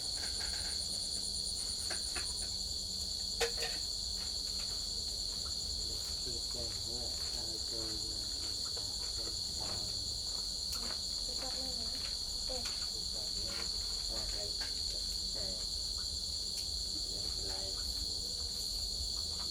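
Crickets chirping in a steady, unbroken high-pitched chorus, with one sharp click about three and a half seconds in.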